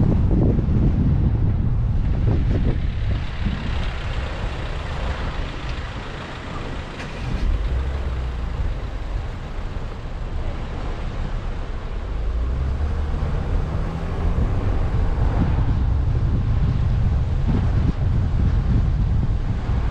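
Road noise and wind of a car on the move: a dense, uneven low rumble of wind buffeting the microphone over tyre and engine noise. It eases off briefly a few seconds in and again around the middle, then picks up.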